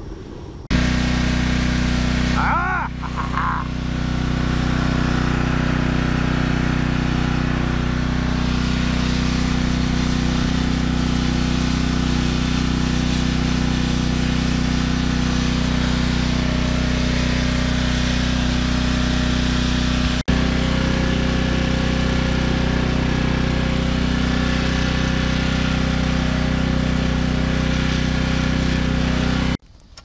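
Steady motor hum with a rush of air: the furnace's blower, a salvaged microwave impeller fan, running and forcing air into the fire. It drops out briefly about two-thirds of the way through.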